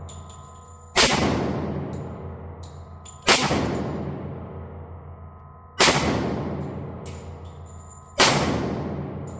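Tisas D10 1911 pistol in 10mm firing four shots, about two and a half seconds apart, each crack followed by a long echoing decay.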